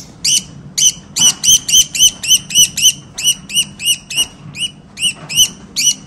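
Female budgerigar, held wrapped in a towel while her cere is scraped, squawking over and over in short calls, about four a second.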